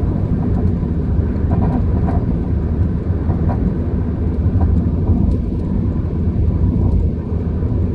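A car in motion with a steady low rumble, and faint short squeaks and ticks now and then: an abnormal noise that the owner has been told likely comes from brake caliper slide pins that have run dry of grease.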